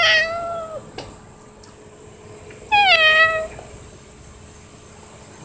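Domestic cat meowing twice, each meow under a second long and dropping in pitch, the second about three seconds after the first.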